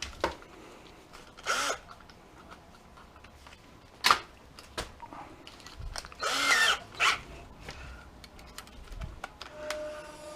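Metal parts of an old electric stove being handled and worked apart: scattered clicks and knocks, a sharp click about four seconds in, and two short bursts of scraping or a tool running, the longer one just past the middle.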